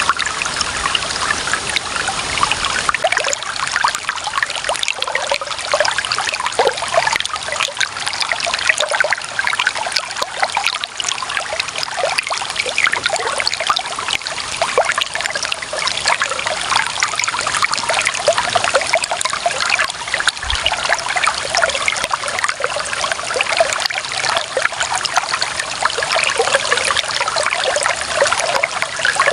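Clear running water trickling and babbling over stones in a shallow stream, a steady splashing without pause.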